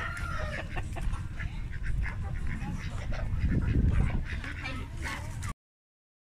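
Caged poultry at a livestock market calling and squawking, with scattered short clucks over a low rumble; the sound cuts off suddenly about five and a half seconds in.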